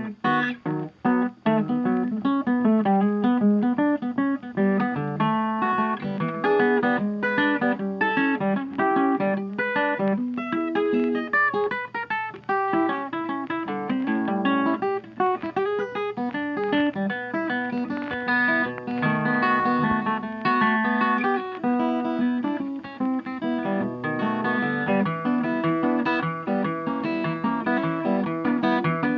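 Background music: a quick, plucked acoustic guitar piece with strummed chords.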